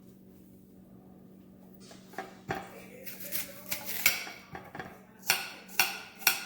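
Knife and dishes knocking and clinking while diced apple is cut and handled: after about two quiet seconds with a low steady hum, a run of sharp, irregular knocks and clicks, several a second.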